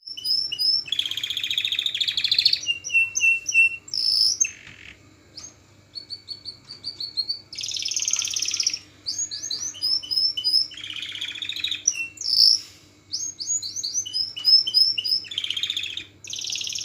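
Songbirds singing: runs of short, high, repeated whistled notes alternating with dense buzzy trills about a second long, recurring several times, over a faint steady hum.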